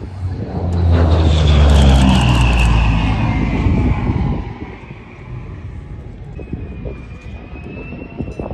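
F-35A Lightning II jet fighter passing over with its F135 afterburning turbofan: the engine noise swells to a loud peak about a second in with a falling whine, then fades away from about four seconds in.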